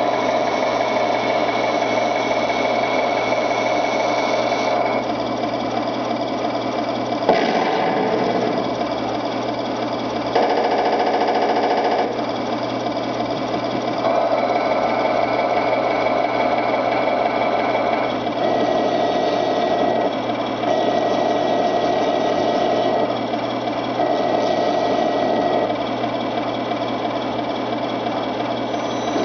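Simulated tank diesel engine sound from the speaker of a 1/16 Hooben T-55A RC tank with Tamiya electronics, running steadily with a rattly knock and changing pitch in stages as the turret swings around. There is a sharp click about seven seconds in, and the sound takes on a different rattle for a couple of seconds around ten seconds in.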